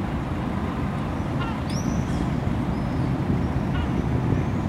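Steady low rumble of city traffic, with a few short high bird chirps about two seconds in.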